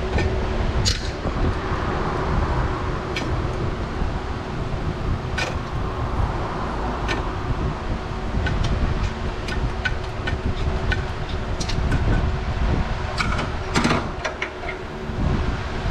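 Wind rumbling on the microphone over a faint steady hum, with scattered short, sharp clicks and taps, several in quick succession about 13 to 14 seconds in.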